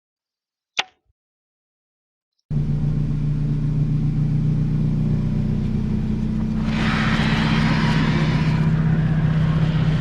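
A single click, then a loud, steady low mechanical hum like a running engine that starts abruptly about two and a half seconds in; a hiss rises over it for about two seconds near the end.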